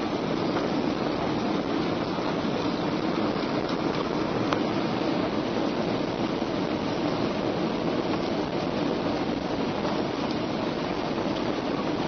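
Steady cabin noise inside a Ryanair Boeing 737 on approach with its flaps out: an even rush of engine and airflow noise that holds the same level throughout.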